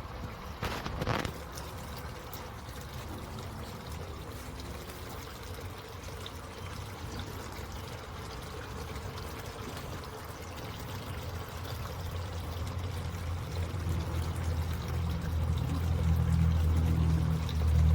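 Water pouring and trickling steadily in the tiers of an Alpine DIG370 pagoda water fountain. There is a sharp knock about a second in, and a low rumble builds and grows louder over the second half.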